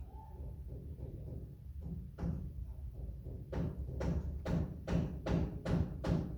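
A series of evenly spaced thuds, about two or three a second, starting about two seconds in and growing louder, over a low rumble.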